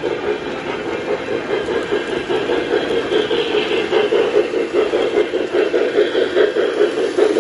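Lionel O-scale model steam locomotive running along the layout track, a steady mechanical rumble of motor and wheels with a quick, even pulse, growing a little louder as it comes close.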